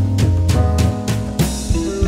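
Background music with drums keeping a steady beat over sustained instrumental notes.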